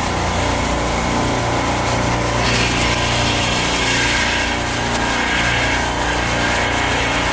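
Supermarket refrigeration rack compressors running with a loud, steady mechanical drone and hum. About two and a half seconds in, a hiss rises above the drone and lasts a few seconds.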